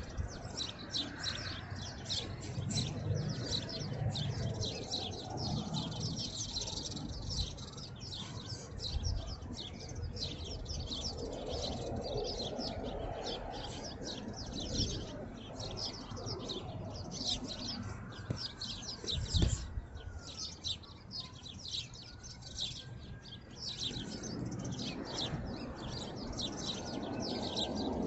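Birds chirping, a dense chorus of rapid high chirps throughout. A few dull thumps come through, the loudest about 19 seconds in.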